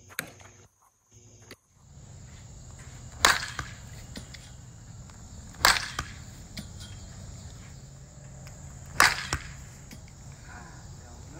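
Softball bat hitting balls off a batting tee: three sharp cracks a few seconds apart, each followed a moment later by a fainter knock.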